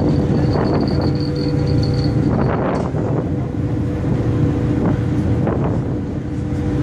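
Ferry engine running with a steady drone, over water rushing in the wake and a few gusts of wind on the microphone.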